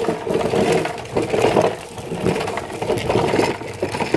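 Hard plastic wheels of a child's ride-on toy car rolling over rough concrete, with a continuous grainy rattle that surges and eases irregularly.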